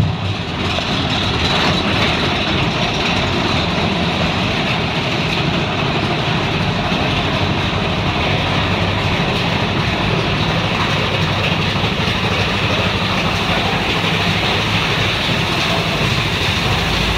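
Big Thunder Mountain Railroad mine-train roller coaster running steadily on its track, a continuous rumble and rattle of the cars heard from on board.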